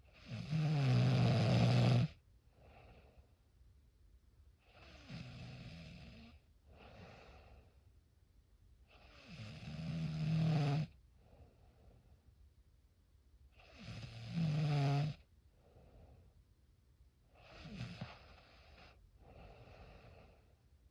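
Snoring in a slow, even rhythm: five long snores about four seconds apart, three of them loud. Each is followed by a shorter, quieter breath.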